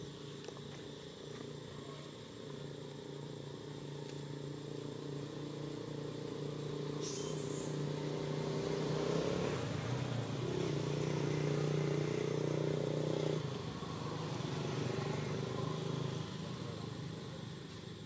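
A motor vehicle engine running, growing louder toward the middle and easing off near the end, with a brief high hiss about seven seconds in.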